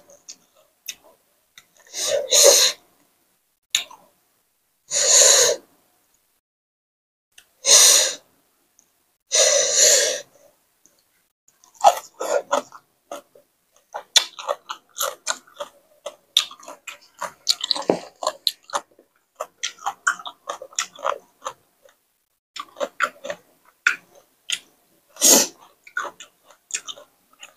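Close-up eating sounds. In the first ten seconds there are four loud, sharp noisy breaths, each under a second. Then comes a long stretch of rapid crisp chewing and crunching of raw vegetables and spicy papaya salad.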